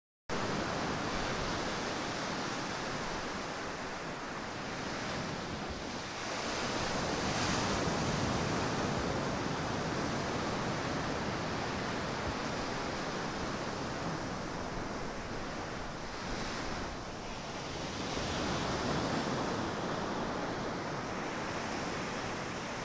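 Ocean surf breaking on a sandy beach: a steady wash of waves that swells and eases every several seconds.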